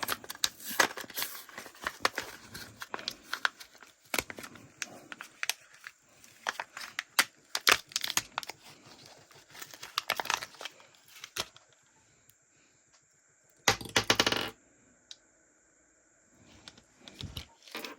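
Plastic packaging of fishing jigs being handled and opened: crinkling and tearing with many small sharp clicks, then a short louder rustle about two-thirds of the way through.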